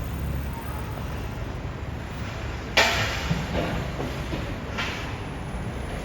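A sharp bang about three seconds in, followed by a couple of fainter knocks, over a steady low rumble.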